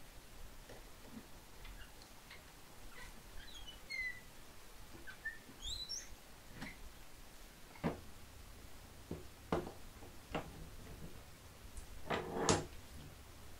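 Faint bird chirps in the first half. Then a few sharp knocks and clatters of tools and wooden parts being handled on a workbench, the loudest a short clatter near the end.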